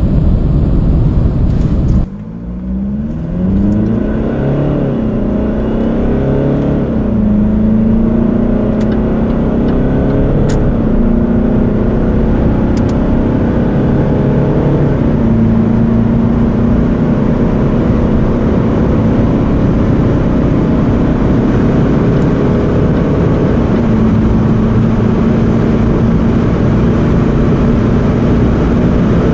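Cabin noise of a Jaguar XF's 2.2-litre four-cylinder turbodiesel at high motorway speed: a steady engine drone under heavy wind and road roar. The engine pitch climbs a few times and otherwise holds level.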